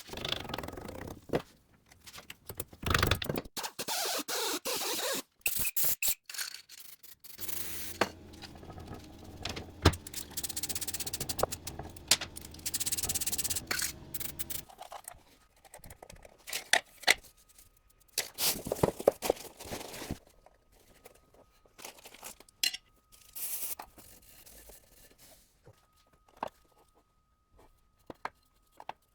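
Metal parts of a Renault TL4 six-speed manual gearbox being handled and fitted during assembly: irregular scrapes, clinks and knocks. A steady hum with hiss runs for about seven seconds in the middle.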